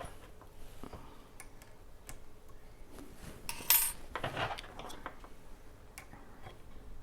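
Small metal parts and tools being handled: scattered light clicks and clinks, with a brief metallic clatter about three and a half seconds in.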